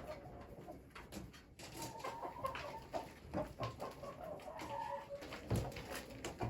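Chickens clucking in short calls, with scattered clicks and a dull thump near the end.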